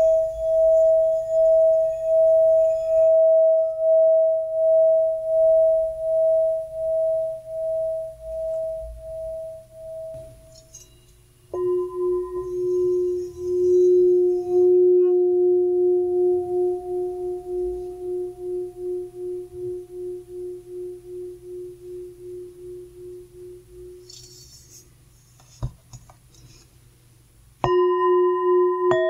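Hand-hammered brass singing bowls played with a wooden stick. A steady, pulsing ringing tone fades out about ten seconds in. Then a larger bowl is struck, and its lower tone rings with a pulsing wobble as it slowly dies away. A light tap comes near the end, then another strike sets several tones ringing together.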